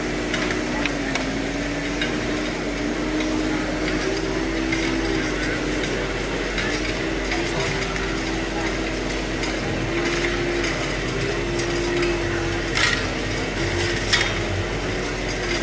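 Radio-controlled scale construction models working: a motor hum that steps up and down in pitch, over the hubbub of a crowded hall, with two sharp clicks near the end.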